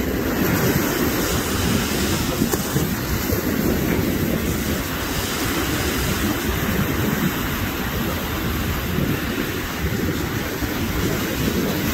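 Wind rumbling steadily and low on the microphone over the wash of surf on a beach.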